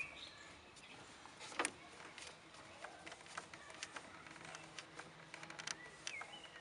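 Faint, scattered clicks and taps of metal tools and parts being handled inside a car's engine bay, with one sharper click about a second and a half in. A bird chirps faintly near the end.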